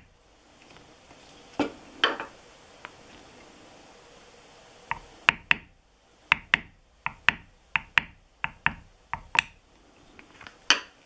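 A leather beveling tool struck with a mallet, setting a chamfer along the edges of a tooled picture in leather laid on a stone slab. Sharp taps: a couple about two seconds in, then a run of about fifteen from about five seconds in, roughly two to three a second.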